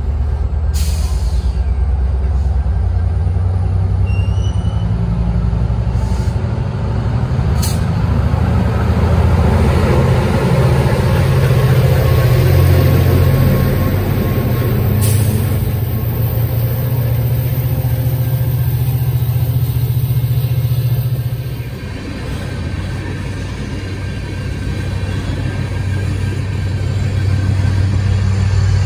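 A Metra commuter train's diesel locomotive running loud and steady with a deep drone as it pushes the train along the platform, with a few short sharp hisses of air. The drone eases off about three-quarters of the way through.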